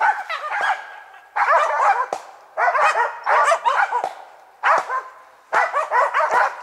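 Karelo-Finnish laikas (Finnish spitz) barking in about five quick runs of high barks with short pauses between them. This is the bay the hunting laikas give up at a tree that holds a marten.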